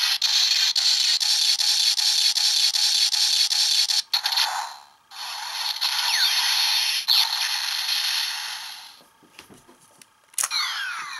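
Electronic sound effects from a Kamen Rider Double transformation-belt toy, played through its small built-in speaker. A long crackling buzz pulses about four times a second. After a brief break come more noisy whooshes with sweeping tones, which die away near the end, followed by a few quick sweeping chirps.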